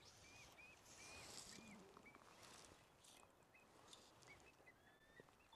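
Faint bird calling: a run of short high chirps, about two a second, with a couple of longer, slightly gliding calls near the end, over a quiet open-air hiss.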